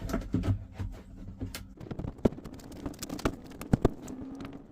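Old plastic heater core housing of a 1996 Chevy S10 knocking and scraping as it is worked back into place under the dash, a string of irregular clicks and knocks.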